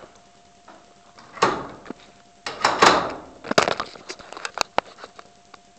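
Handling noise from a moving camera: two rustling swishes, the second the loudest, then a quick run of sharp clicks and knocks. A faint steady tone comes and goes underneath.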